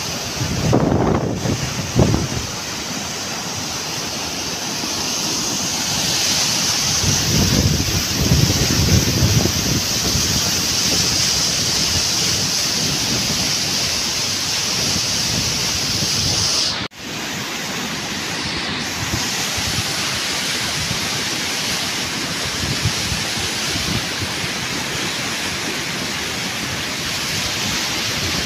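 Muddy flash-flood torrent rushing over fields and stone terrace walls: a loud, steady rush of water, with low gusty rumbles now and then. The sound cuts out for an instant a little past halfway.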